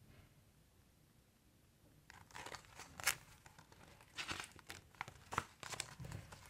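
Faint rustling and crinkling of paper as a picture book's page is handled and turned: a string of short papery rustles starting about two seconds in, the sharpest one about three seconds in.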